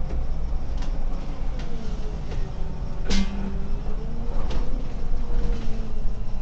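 Solaris Urbino 18 articulated city bus driving, heard from the driver's cab: a steady low engine and road rumble with a wavering whine over it, light rattles, and one sharp click about three seconds in.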